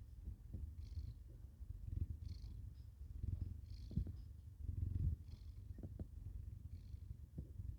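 A sleeping cat snoring faintly: a low rumble that swells and fades in a slow, even breathing rhythm, about one breath every second and a half.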